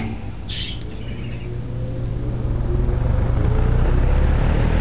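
Late-1940s or early-1950s Duralux 20-inch all-metal box fan starting up on high: its six-pole motor hums as the blades spin up, with a whine rising in pitch and a rush of air that grows louder over the first three seconds, then settles into a steady deep drone.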